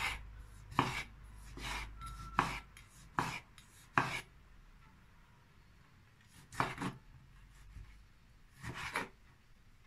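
Kitchen knife slicing through a tomato and striking a wooden cutting board: six cuts a little under a second apart, a pause of about two seconds, then a few more.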